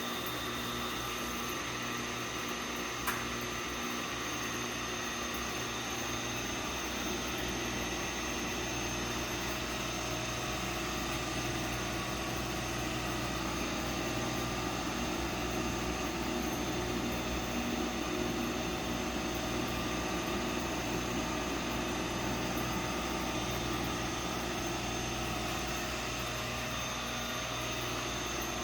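Coffee roasting machine running: a steady mechanical hum with several steady tones, and a single click about three seconds in.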